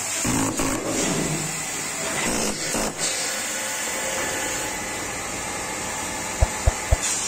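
Steady machine noise with a hiss of air, then three quick low thumps in under a second near the end as a pneumatic upholstery tool drives a decorative button into the padded arm of a tufted sofa.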